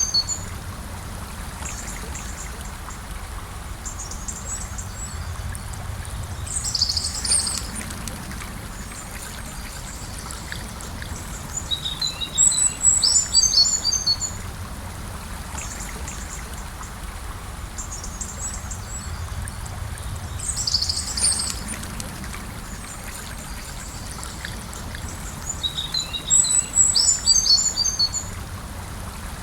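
Gentle river flowing with a steady rushing sound, and a songbird singing short phrases of high chirping notes four times, about every six to seven seconds.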